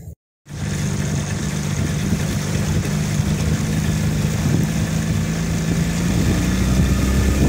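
Boat engine running with a steady, even low drone under a hiss of noise, starting abruptly after a split second of silence and getting slightly louder toward the end.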